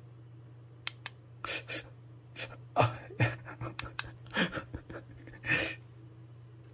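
A man gasping and letting out short breathy grunts, several in a row, as electrical muscle stimulation pulses make his muscles twitch. Two small clicks come about a second in.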